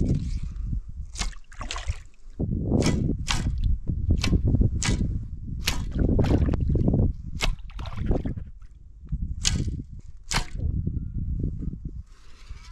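Shallow muddy river water sloshing and gurgling as someone moves through it, with a dozen or so sharp clicks and knocks scattered throughout.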